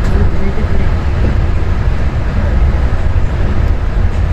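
Osaka Monorail straddle-beam train running along its guideway: a steady, loud low rumble of the running gear and motors.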